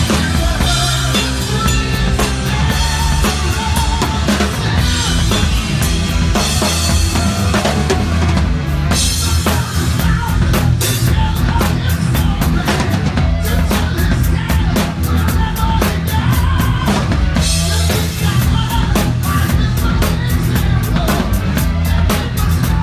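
Heavy metal band playing, led by a Sonor drum kit with Paiste cymbals: kick, snare and cymbals drive a dense beat under bass and pitched instruments, with runs of rapid hits.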